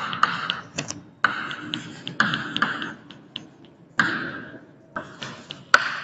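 Chalk writing on a chalkboard: a run of short scratchy strokes, each under a second, with sharp taps of the chalk against the board among them, as the words "Deccan Plateau" are written.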